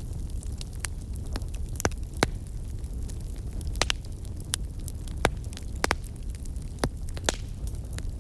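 Wood fire burning in a fireplace: a steady low rumble with irregular sharp crackles and pops, about a dozen of them.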